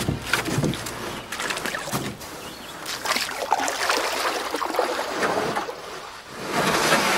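Irregular splashing and lapping of water, giving way to a steady rushing noise near the end.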